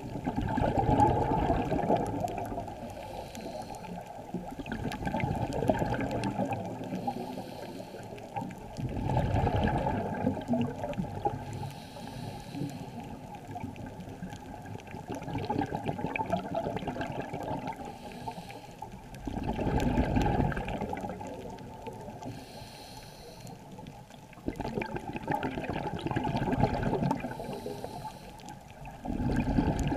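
Scuba breathing heard through a waterproof camera housing: muffled bubbling surges from regulator exhalations, swelling and fading every few seconds, with a faint hiss of inhalation between them.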